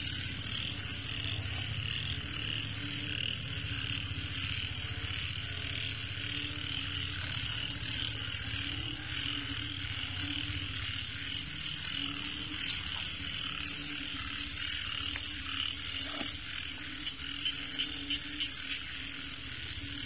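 Frogs calling in a steady chorus, with a low rumble underneath.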